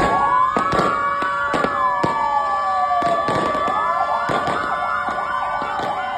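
Several fire engine sirens wailing at once, their rising and falling tones overlapping, with fireworks cracking and popping throughout.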